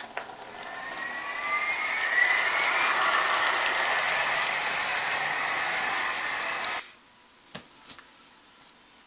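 Electronic jet-engine sound effect of a Lionel M-497 jet-powered RDC model train: a loud rushing hiss with whines rising in pitch, building over the first two seconds and then holding. It cuts off suddenly about seven seconds in, leaving faint quiet with a couple of light clicks.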